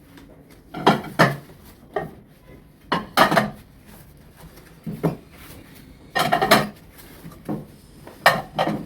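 Plates from a new dinner set being handled and set down, clinking and clattering against each other in a series of separate knocks.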